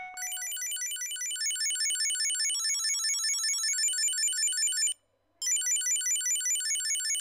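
Chipolo Plus Bluetooth tracker ringing through its built-in speaker: a fast, high-pitched electronic tune of rapid beeps that repeats, breaks off for about half a second some five seconds in, then starts again.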